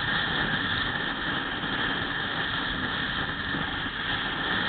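Steady road and wind noise from a vehicle travelling at speed, with no distinct engine note or sudden sounds standing out.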